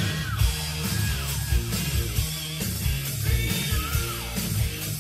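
Rock music with heavy drums and bass keeping a steady beat.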